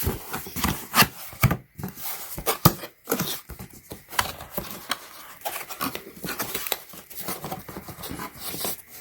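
Hands unpacking a boxed item: packaging rustling and crinkling, with irregular sharp clicks and knocks.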